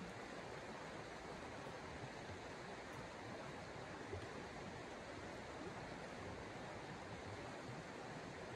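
Shallow creek flowing over stones, a steady rush of running water.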